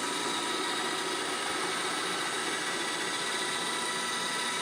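iRobot Roomba 694 robot vacuum running, a steady whir of its vacuum and brush motors with a high whine.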